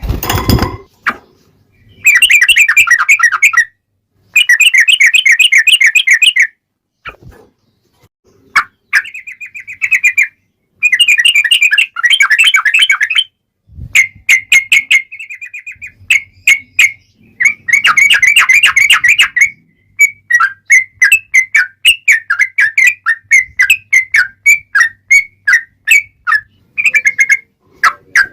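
Yellow-vented bulbul (trucukan) singing: bursts of fast, bubbling, wavering notes, each a second or two long, with short pauses between them. A brief thump comes about half a second in.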